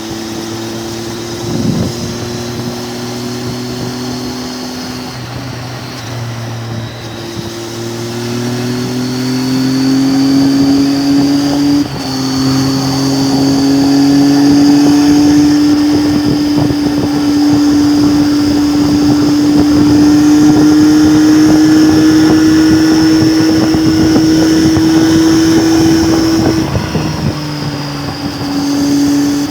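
Triumph Tiger 800's three-cylinder engine under way, its pitch rising steadily through the gears with a few brief breaks for gear changes, then holding a high, loud note before easing off near the end.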